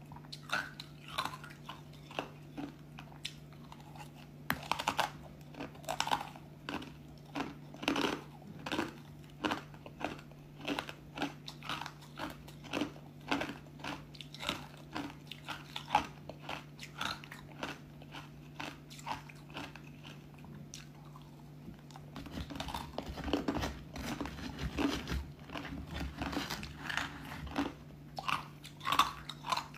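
Pieces of crisp white ice coated in matcha powder crunching between the teeth, bitten and chewed in a steady run of sharp cracks, about one to two a second, with a denser burst of crunching a little past the middle. Near the end, a metal spoon scrapes through the ice in the plastic tub.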